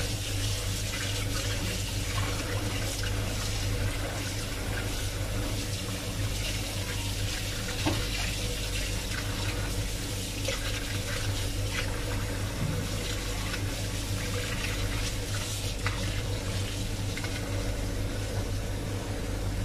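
Tap water running steadily into a steel bowl of goat tripe in a stainless-steel sink, as hands rub and rinse the pieces under the stream, with a few small knocks and splashes.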